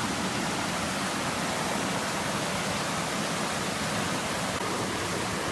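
Waterfall's steady rush of falling water, an even, unbroken roar of noise.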